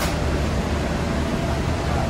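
Steady low hum and even noise from a parked air-conditioned express passenger train standing at the platform, with a faint steady whine above it.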